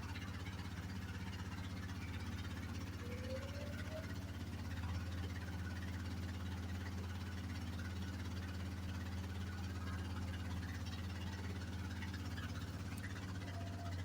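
Yamaha Grizzly 660 ATV's single-cylinder four-stroke engine idling steadily after starting.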